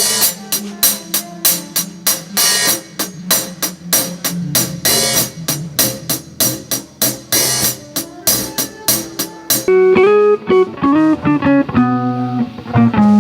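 Band sound check: a drum kit is struck at a steady beat, about four hits a second. About ten seconds in the drums stop and a guitar plays a run of single notes.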